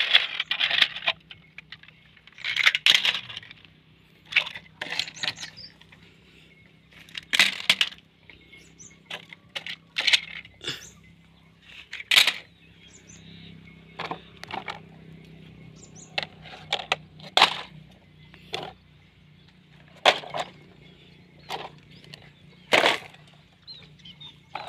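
Plastic toy vehicles clattering as they are picked up off wooden planks and dropped into a plastic basket full of other plastic toys: a run of irregular sharp clacks and knocks, about one or two a second.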